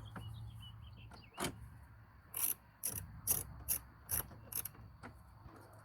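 Hand ratchet clicking in short strokes, about two clicks a second, while driving 7mm screws back into the dash.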